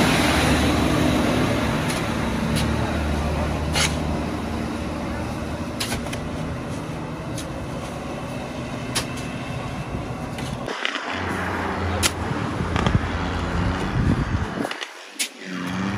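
Diesel dump truck engines running under load as they climb a hill, a steady low drone that eases off and then builds again, with scattered sharp clicks.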